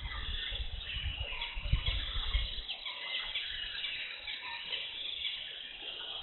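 Wild birds chirping and calling, many short twittering notes overlapping. A low, uneven noise underneath stops abruptly about two and a half seconds in.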